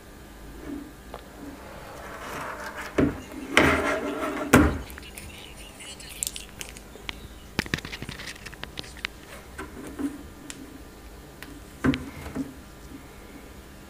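Handling noise: knocks and clacks as a smartphone is set down on a table and picked up again, with light taps and clicks in between. The loudest knocks come a few seconds in, with another pair near the end.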